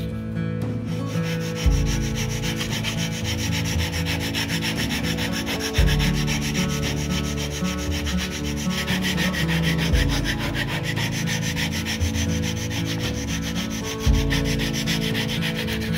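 Hand sanding of a carved wooden lure body clamped in a vise: sandpaper on a block rubbed rapidly back and forth over the wood's edge, a steady scratching of quick strokes, over background music.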